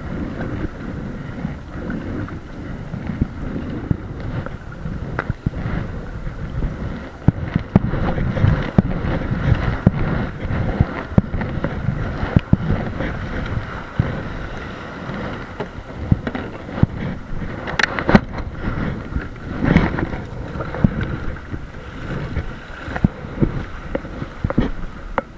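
Wind buffeting the microphone over the splash of paddle strokes as a fishing kayak is paddled into the beach, with water washing around the hull in the shallow surf near the end.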